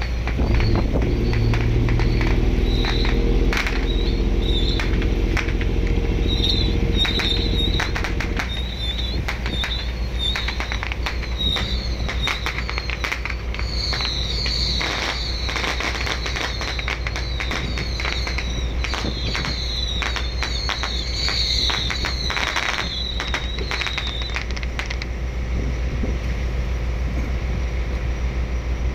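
Engine of a fishing boat under way, a steady low rumble mixed with wind and sea noise. A pitched drone sits over it for about the first eight seconds, and sharp cracks and high chirps come and go through the middle.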